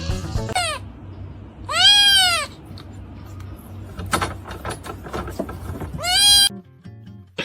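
An animal calling out three times in long, arching cries that rise and fall in pitch: a brief one at the start, then two loud ones about four seconds apart, with some clicks between them.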